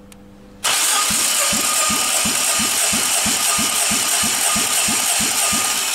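Nissan HR16DE 1.6-litre four-cylinder engine being cranked over by its starter motor during a compression test of the third cylinder, starting about half a second in. The cranking has an even rhythmic pulse about three times a second and stops near the end, while the gauge reads about 15 kg/cm².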